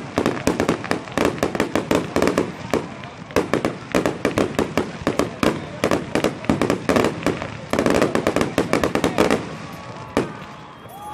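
Fireworks display: a rapid barrage of bangs and crackles, many per second, thinning out and dying down near the end.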